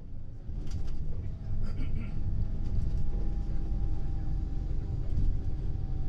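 Ride noise inside a moving passenger vehicle: a steady low rumble with a faint steady whine above it, and a few light rattles between about half a second and two seconds in.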